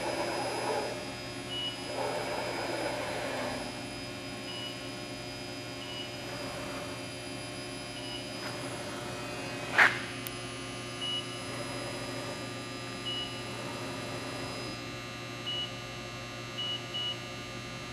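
Steady electrical hum of a Bridgeport CNC milling machine and its Anilam Crusader M control, with short high beeps from the control every second or two and one sharp click about ten seconds in.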